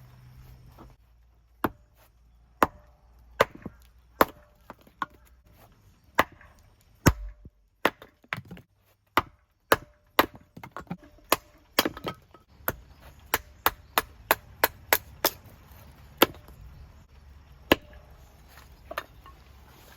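A blade chopping into wood: a long run of sharp, irregular strikes, coming faster in the second half.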